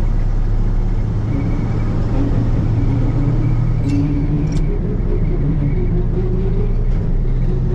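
1974 Ford F-100's 390 V8 and drivetrain running under way: a steady low rumble, joined about a second in by a thin whine. Something underneath sounds really bad, the sign of a rear axle shaft working loose after its keeper failed.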